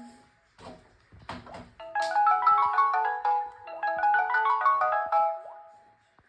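Samsung mobile phone alarm tone: a quick marimba-like melody of short bell-like notes, played as one phrase and then repeated, starting about two seconds in and stopping about a second before the end. A couple of faint knocks come before it.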